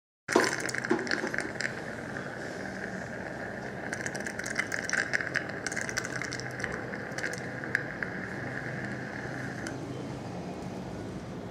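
Steady hiss from dental surgical equipment with scattered clicks and rattles of metal instruments; the hiss stops about ten seconds in.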